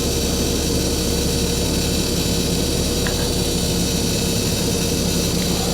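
Ford F-750 dump truck's engine running under a steady load as its PTO-driven hydraulic pump raises the dump body, with a steady hum and hiss.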